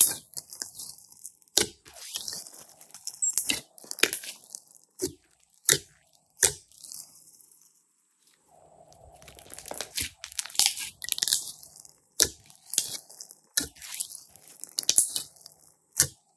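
Glossy slime being squeezed and stretched by hand, giving clusters of sharp sticky pops and crackles with a short pause about halfway through.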